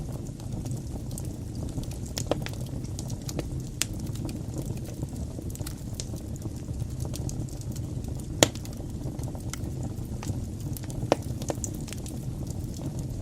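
Wood fire burning in a fireplace: a steady low rumble of flames with scattered sharp crackles and pops, one loud pop about eight and a half seconds in.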